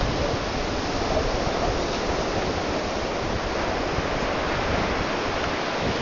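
Steady, even rushing hiss of white noise, with no tone or rhythm in it.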